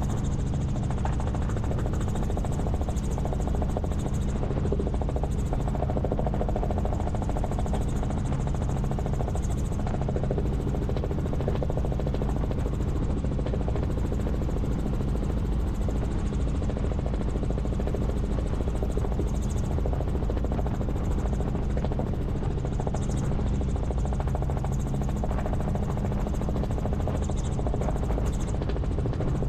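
Helicopter in flight: the steady, unbroken drone of its rotor and engine.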